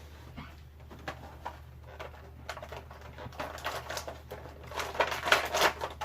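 Plastic action-figure packaging being handled as the figure is worked free of its tray: scattered clicks and crackly rustling that grow busier and louder in the last two and a half seconds, over a steady low hum.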